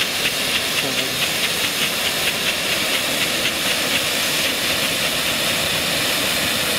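Blackboxx Strobolobo Silber silver strobe firework burning with a steady hiss and a rapid, regular popping of its strobe charge, about six pops a second. About four seconds in, the popping fades into plain hissing.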